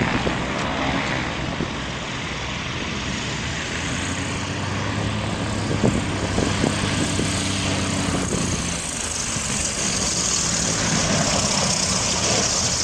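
Light single-engine propeller plane running at high power on its takeoff roll, a steady drone that grows louder and harsher near the end as the plane comes close.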